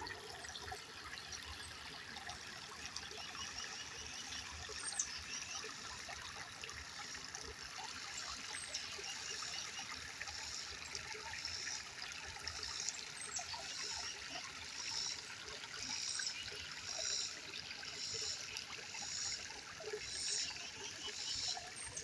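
Water trickling steadily, with short high-pitched calls repeating about once a second in the second half.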